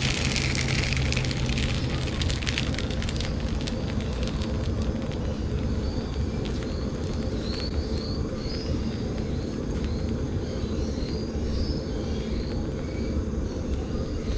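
Steady low rush of a portable butane gas stove's burner heating a cast iron skillet. For the first two or three seconds naan dough sizzles and crackles as it is pressed onto the hot pan, and faint high chirps come and go near the middle.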